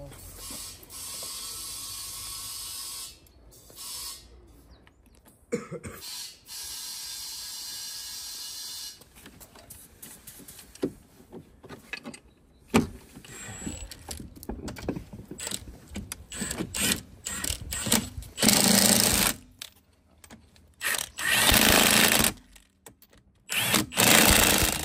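A power tool such as a cordless drill or impact driver runs twice steadily for a few seconds, driving fasteners during ATV assembly. Scattered clicks and knocks of parts being fitted by hand follow, then three loud bursts of about a second each from the tool near the end.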